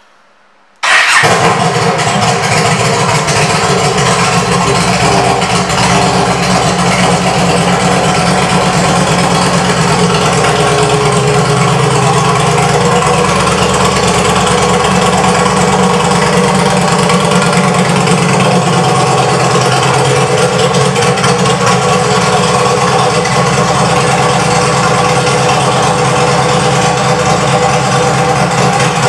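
Yamaha V Star 1300's V-twin engine, fitted with a Cobra aftermarket exhaust, cuts in abruptly about a second in and then idles steadily and loudly.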